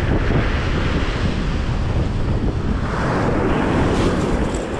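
Ocean surf washing onto a beach, with wind buffeting the microphone; a wave swells up about three seconds in.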